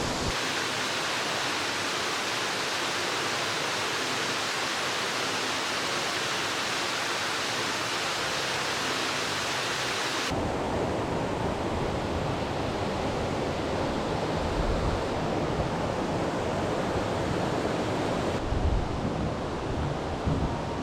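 Steady rush of falling water from a waterfall. About ten seconds in, the sound switches abruptly to a deeper, duller rush, with a few low buffets of wind on the microphone near the end.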